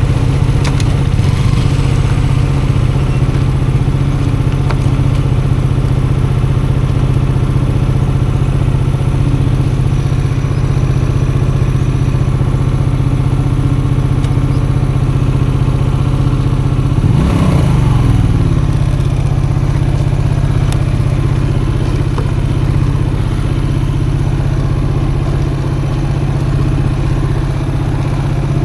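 Custom motorcycle engine idling steadily while the bike coasts downhill in neutral, with light rattles from the rough track and one brief rev about seventeen seconds in.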